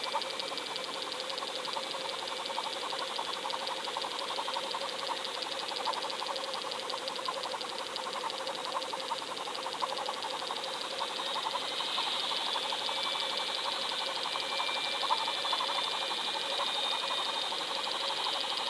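Underwater sound picked up by a GoFish Cam towed on a fishing line: a steady, fast mechanical ticking with a constant hum, as water rushes past the camera housing while it is pulled along. It grows a little louder about two-thirds of the way through.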